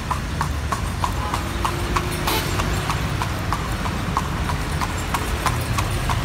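Carriage horse's hooves clip-clopping on an asphalt street at a steady trot, about three to four hoof strikes a second, over a low rumble of wheels and traffic.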